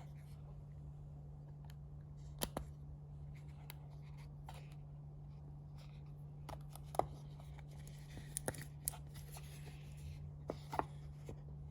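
Small scattered clicks and light rustling from handling a steel watch and its bracelet and packaging, with a cluster of clicks near the end, over a steady low hum.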